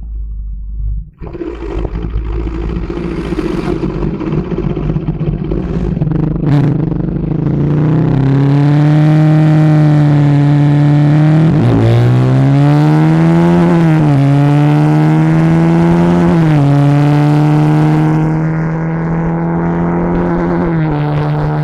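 Bajaj Pulsar RS 200's single-cylinder engine running through its stock exhaust while riding, loud and steady. Its pitch drops sharply and climbs again a few times as the rider shifts gears.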